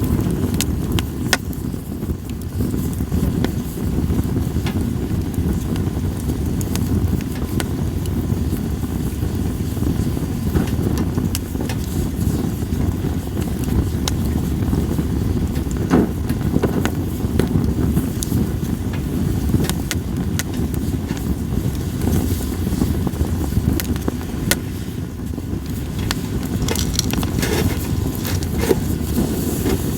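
Split sawtooth oak (kunugi) logs burning in a campfire, crackling with many scattered sharp pops over a steady low rumble.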